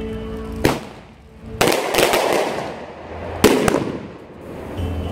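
Fireworks going off: three loud bangs, the second followed by about a second of crackling. Hymn music drops out under them and comes back near the end.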